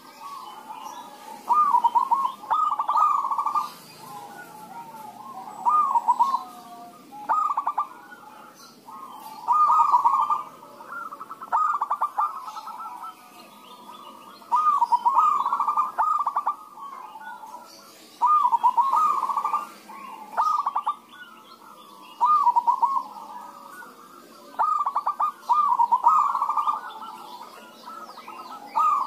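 Several zebra doves (perkutut) cooing back and forth: short phrases of rapid, rolling coo notes, one about every one and a half to two seconds, some calls overlapping as the birds answer one another.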